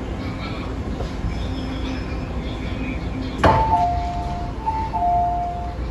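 MTR Tsuen Wan Line M-train running with a low hum, then a sharp clunk about three and a half seconds in, followed by a two-pitched high squeal that steps between two steady tones for about two seconds: the car's brake squeal as the train slows.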